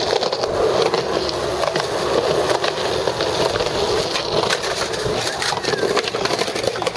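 Skateboard wheels rolling over concrete with a steady rumble, broken by sharp clacks and knocks of the board, most of them in the second half.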